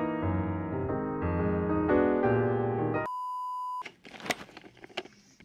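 Background piano music that cuts off about three seconds in, followed by a steady electronic beep lasting under a second. After the beep there are only faint scattered clicks and knocks.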